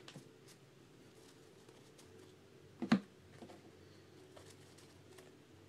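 Faint clicks and rustles of sealed foil trading-card packs being handled on a tabletop, with one brief louder sound about three seconds in.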